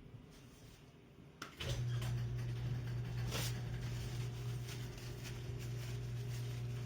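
A steady low machine hum starts abruptly about a second and a half in, right after a couple of clicks, and holds one unchanging pitch; a sharp click comes about a second later.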